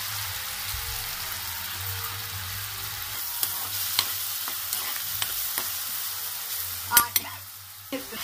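Chopped onions sizzling in hot oil in a metal pan, with a metal spoon scraping and knocking against the pan as they are stirred. Two sharper knocks come about seven seconds in, and then the sizzle falls quieter.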